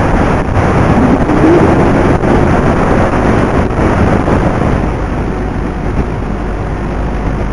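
Loud, steady rushing wind noise on the onboard camera of a Flite Test Versa Wing in flight, mixed with the drone of its electric pusher motor and propeller.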